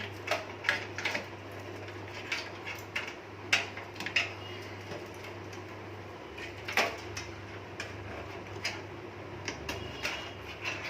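Irregular light clicks and taps of wires and plastic connectors being handled and tucked inside a desktop computer case, the sharpest about three and a half seconds in, over a steady low hum.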